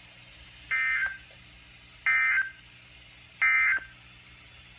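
Three short bursts of EAS (SAME) digital data tones, each under half a second and about a second and a half apart: the end-of-message code that closes the severe thunderstorm warning.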